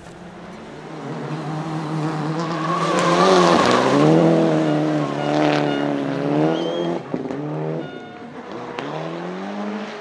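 Toyota Celica GT-Four ST185 Group A rally car's turbocharged four-cylinder engine revving hard, its pitch rising and falling as it slides through a corner, loudest a few seconds in. Tyres squeal over it.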